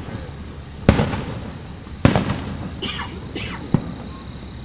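Fireworks display: two loud booms about a second apart, each trailing off in a rolling echo, then a brief crackle and a single sharp pop near the end.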